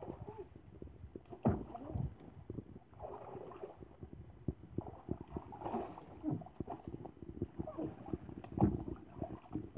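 Water splashing and sloshing in an inflatable paddling pool as a person wades and kicks through it, with irregular dull thumps, the loudest about a second and a half in, at two seconds, and near the end.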